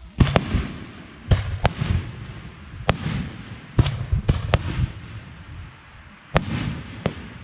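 Fireworks exploding in quick, irregular succession: about nine sharp bangs, each followed by a rolling echo.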